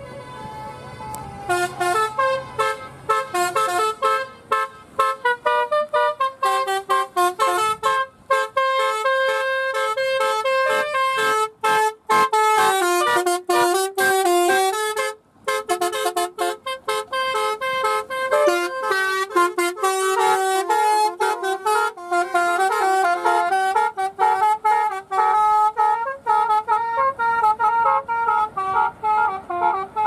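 Basuri-type telolet musical horn playing a fast tune of short notes, several tones sounding together as a chord. It starts about a second and a half in and breaks off briefly midway.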